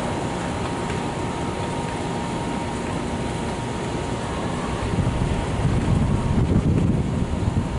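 Steady outdoor rumble of an elevated subway line and street traffic, with a faint steady whine. From about five seconds in, wind buffets the microphone.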